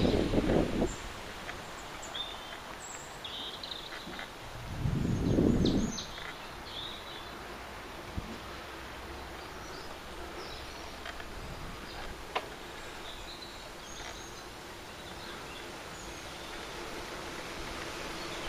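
Outdoor ambience with scattered short bird chirps. A gust of wind buffets the microphone about five seconds in.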